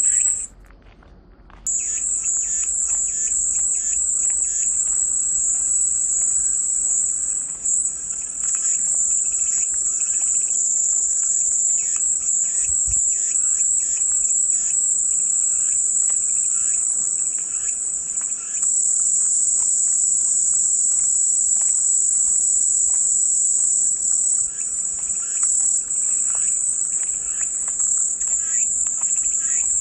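Cicadas buzzing in a continuous high-pitched drone. The drone cuts out about half a second in and comes back a second later, with faint short chirps underneath.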